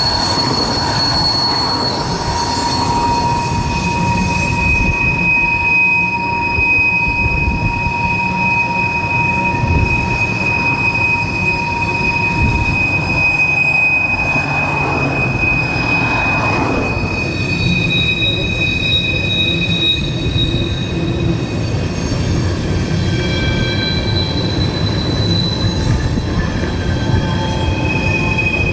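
Railcars rolling past with their wheels squealing: several steady high squeal tones over a continuous rumble, the tones dropping out and changing pitch now and then.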